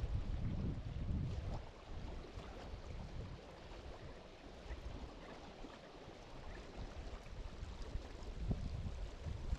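Wind gusting across the microphone, a low rumble strongest about the first second and again near the end, over the faint lapping and trickle of water at the shore.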